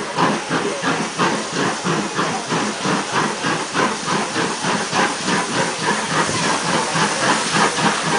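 Steam locomotive arriving at a station, its exhaust chuffing in a rapid, even beat of about five a second with a steady hiss of steam.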